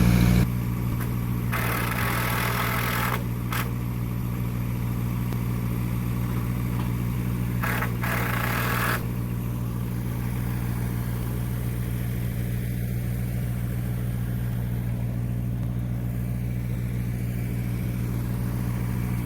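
An engine running steadily at idle, a constant low hum. Twice in the first half it is joined by a short hiss lasting a second or so.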